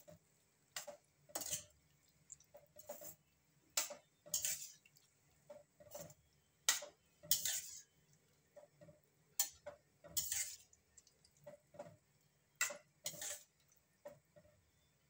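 A spoon stirring chickpeas into a thick masala gravy in a cooking pan, scraping and knocking against the pan at an uneven pace, about one stroke a second.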